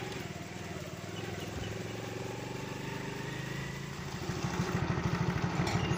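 Motorcycle engine running at low speed, then idling louder with a rapid even beat from about four seconds in.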